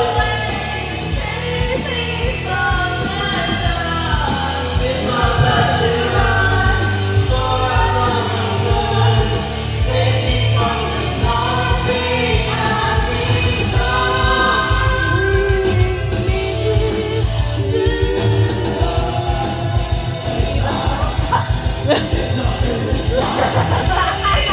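Music with singing: a sung melody over a steady bass line.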